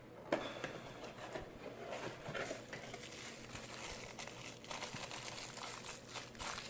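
Rustling and crinkling with light clicks and knocks.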